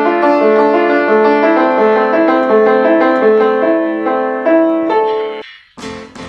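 Upright piano being played: a melody of sustained notes over a repeating accompaniment, which cuts off suddenly about five seconds in. Recorded music with a steady beat starts just before the end.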